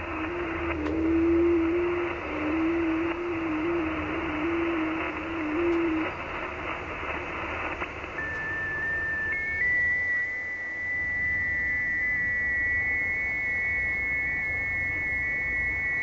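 HF radio receiving FT8 digital signals on the 30 m band: receiver hiss with a low FT8 tone hopping in small pitch steps for the first several seconds. About eight seconds in a higher FT8 tone starts, and about nine seconds in the hiss drops away, leaving that tone stepping between close pitches.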